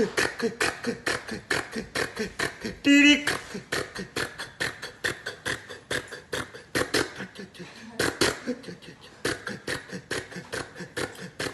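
A man imitating a two-cylinder tractor engine with his mouth: a quick, even putt-putt of sharp vocal pulses, about five a second, with a brief pitched vocal whine about three seconds in.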